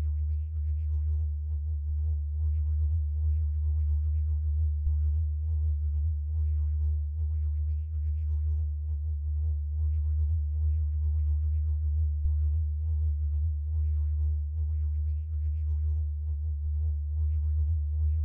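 Electronic ambient music: a deep, steady bass drone with held tones above it and faint flickering higher sounds.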